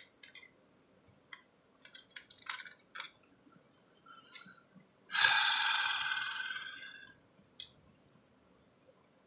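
Small clicks and taps of handling the camcorder's plastic parts and cables. About five seconds in comes a loud breathy hiss, like a long exhale, that starts suddenly and fades out over about two seconds.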